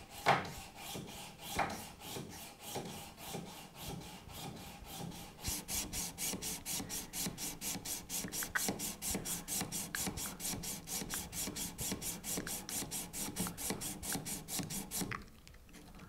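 Victorinox Swiss Army Knife wood-saw blade stroked back and forth over a diamond sharpening plate held in a vise, honing its dulled teeth: a steady rasp of steel on diamond in quick, even strokes. It grows louder about five seconds in and stops a second before the end.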